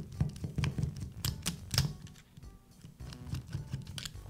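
Screwdriver backing out the reverse-threaded chuck screw of a Makita cordless drill: a string of irregular light metal clicks and ticks as the tip works in the screw head and the grip is shifted.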